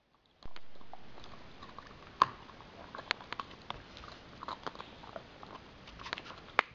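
Husky chewing a bone: irregular crunches and sharp cracks of teeth on bone, the loudest about two seconds in. A knock about half a second in.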